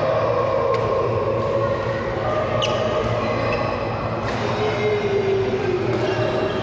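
Steady droning background noise in a large indoor sports hall, its pitch slowly wavering. Over it come a few sharp clicks, about every two seconds, of badminton rackets striking the shuttlecock during a rally.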